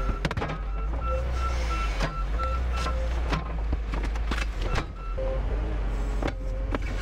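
Diesel engine of a fork-equipped loader running steadily under load as its forks push under and lift a junked car, with a rapid pulsing high-pitched whine over the low drone. Sharp metal knocks and clanks as the car body shifts and scrapes on the forks.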